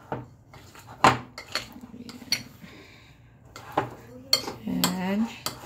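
Metal fork clinking and scraping against a glass mixing bowl while stirring a sticky bread dough. The clinks are sharp and irregular, about seven of them, the loudest about a second in.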